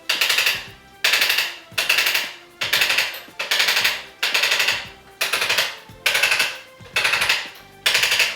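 Erchonia Brimhall electric chiropractic adjusting instrument firing its series of light impulses into the neck vertebrae. It goes in rapid rattling bursts of taps, each about half a second long, repeated about once a second.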